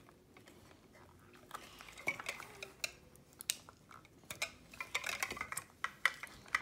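Small hard plastic capsule segments of a 5 Surprise toy ball clicking and clacking together as they are handled and pried open, the clicks getting more frequent after about four seconds.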